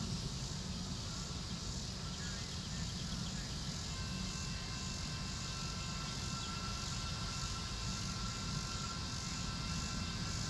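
Outdoor trackside ambience: a steady low rumble, with faint steady high-pitched tones joining about four seconds in.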